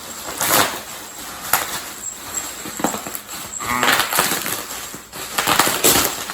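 Plastic wrap being crinkled and pulled off a packaged guitar, in irregular rustling, crackling bursts.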